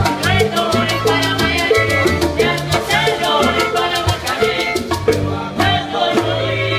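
Live Cuban band playing lively salsa-style music: bowed violin, strummed guitar and hand percussion over a bass line, with a man singing. The percussion keeps a steady, quick beat.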